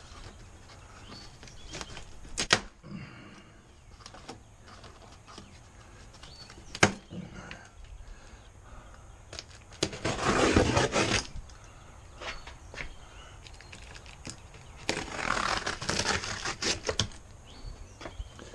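Yellow plastic packing strapping on a cardboard grill box snapping as it is cut, two sharp clicks a few seconds apart. Then the large cardboard box scraping and rubbing as it is tipped and shifted on the floor, in two bursts a couple of seconds long.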